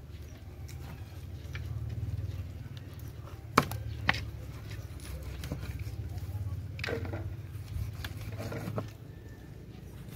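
Knife working through a large sweetlips fish on a slatted wooden table, with two sharp knocks of the blade on the wood about half a second apart near the middle and a few lighter ones later, over a steady low rumble.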